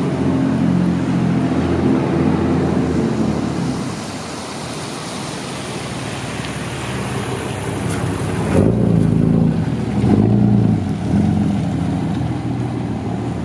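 Traffic on a wet street: engines running at low speed, with tyre hiss on the wet pavement swelling through the middle. After the hiss drops off, a heavy engine's low rumble rises twice, around two-thirds of the way in.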